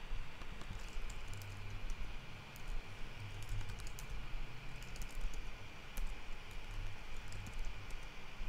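Computer keyboard typing: scattered, irregular keystrokes over a steady low hum.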